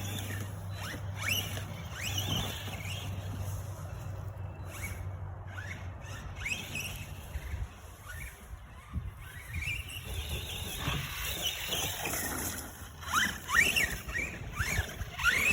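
Brushless electric motor of a 1/10-scale Arrma Granite RC monster truck whining up in short throttle bursts, each a quick rising whine, coming thick and fast near the end as it is driven hard over a dirt track.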